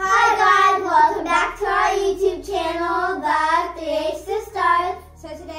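Young girls singing together, a string of drawn-out, wavering notes that stop about five seconds in.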